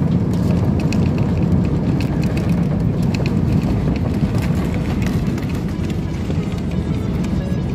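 Cabin noise of an AirAsia Airbus A320 on its landing roll after touchdown: a steady low rumble with light clicks and rattles, easing off slightly as the jet slows.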